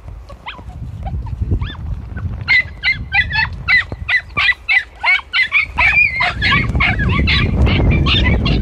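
A pack of young podenco hounds yelping and giving tongue while hunting through bramble thickets. There are a few scattered cries at first, then from about two and a half seconds in a rapid, overlapping chorus of high-pitched yelps. A low rumbling noise joins underneath from about six and a half seconds in.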